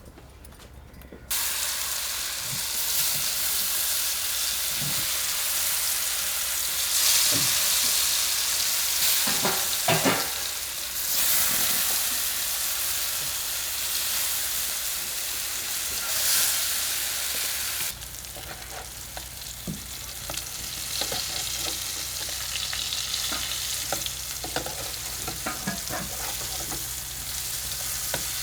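Raw banana frying in hot oil in a pan: a loud sizzle that starts suddenly about a second in, with a few knocks from stirring. It settles quieter for the last third.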